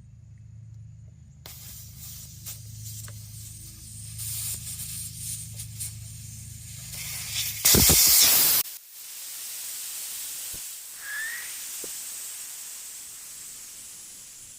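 Air hissing out of a truck tire's valve stem as the valve core is unscrewed, over a low hum; about eight seconds in a loud rush of air lasting about a second as the core comes free, then a steady hiss as the tire deflates.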